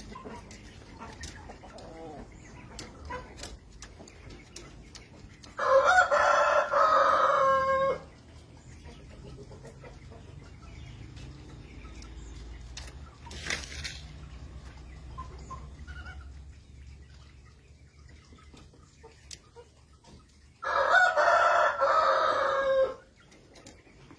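Rooster crowing twice, each crow a loud call of about two seconds, roughly fifteen seconds apart.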